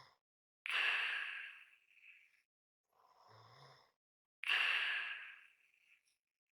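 A person's slow, heavy breathing, almost a snore: twice a loud breath starts suddenly and fades over about a second, ending in a light whistle. Between them comes a softer breath with a faint low buzz.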